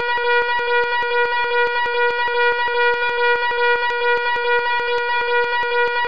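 Loud fire alarm sounding continuously: a steady, buzzing alarm tone with a rapid, even clicking running through it.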